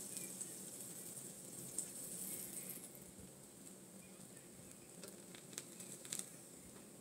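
Pancakes cooking on a flat-top griddle, giving a faint sizzle, with a few light clicks as a pancake is lifted and turned by hand.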